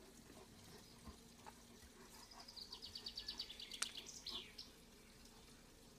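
A small bird sings a fast trill of repeated high notes, starting about two seconds in and lasting about two seconds, ending with a couple of short downward-sliding notes. A single sharp click sounds in the middle of the trill, over an otherwise very quiet background.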